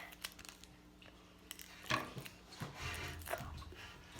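Faint eating sounds: chewing, with a few small clicks and knocks of tableware, the strongest about two seconds in.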